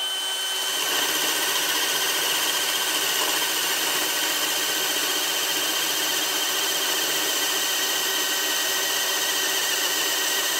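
DeWalt XR brushless cordless hammer drill running steadily under load, boring a 1.5-inch spade bit into a pressure-treated 6x6 post. Its motor gives a steady whine that holds its pitch throughout.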